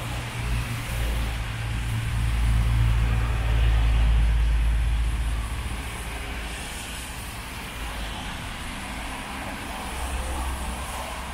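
Street traffic on wet roads: a passing vehicle's low rumble swells about two seconds in and fades by about six seconds, over a steady hiss of rain and tyres.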